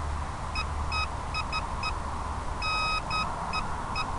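Electronic beeps at one steady pitch, about ten of them in an irregular pattern of short beeps and a few longer ones, over a steady hiss and low rumble.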